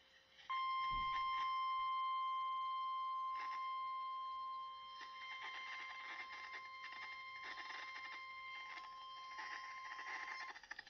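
NOAA Weather Radio 1050 Hz warning alarm tone from a weather radio's speaker: one steady, high-pitched beep that starts about half a second in, is held for about ten seconds, and then cuts off. It signals that an emergency warning message, here a severe thunderstorm warning, is about to be broadcast. Short crackles of radio static run through it.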